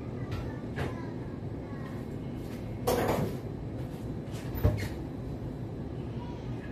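Kitchen cleaning handling sounds: a few light clicks of things being moved, a brief scrape about three seconds in, and a sharp knock a little later, over a steady low hum.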